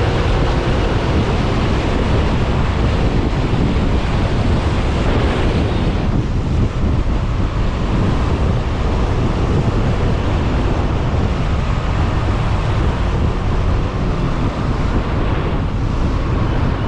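Heavy wind buffeting on a GoPro Hero 8 Black's microphone while riding a Yamaha Smax 155 scooter at road speed: a loud, steady rumbling rush, with a faint engine hum beneath it early on.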